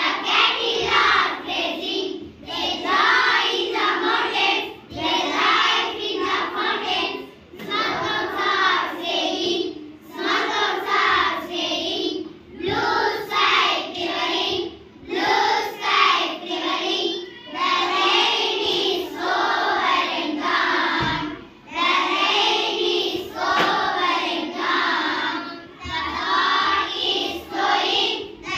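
A chorus of young schoolchildren singing an English poem in unison, line by line, with short breaks between the lines.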